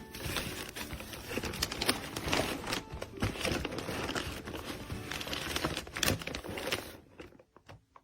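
Plastic crinkling and rustling with scattered sharp clicks, as of packaging being handled, stopping about seven seconds in and followed by a few faint clicks.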